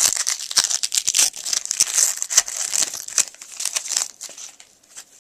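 Foil wrapper of a trading card pack crinkling and rustling as it is handled and torn open, dying down near the end.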